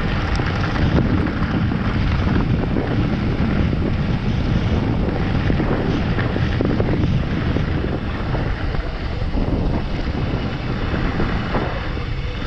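Wind buffeting the bike-mounted camera's microphone while a mountain bike rolls fast over a gravel and dirt trail, its tyres rumbling over the loose surface.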